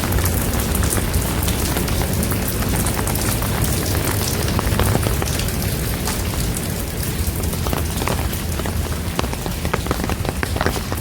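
Steady rain falling, a dense patter with many sharp individual drop taps close by over a low rumble.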